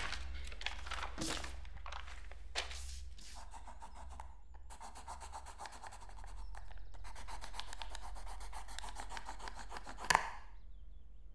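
Pencil scribbling hard and fast on a spiral notepad, a rapid run of scratching strokes, after a few sharp rustles of paper pages at the start. A sudden loud stroke comes near the end, under a low steady hum.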